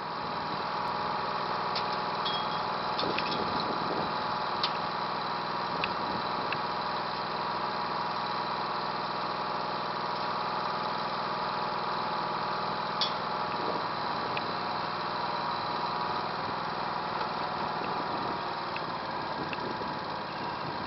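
Craftsman garden tractor's engine idling steadily, with a few light clicks and knocks over it.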